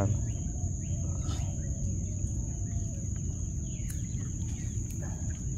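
Steady high-pitched buzzing of insects, over a low continuous rumble, with a few faint bird calls.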